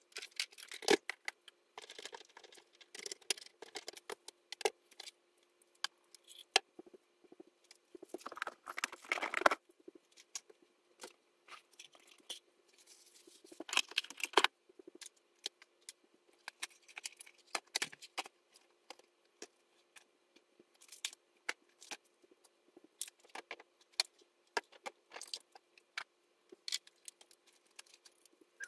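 Sped-up sound of tidying a workbench: rapid clicks, taps and small rattles of objects being picked up and set down, with a few short bursts of rustling, over a faint steady hum.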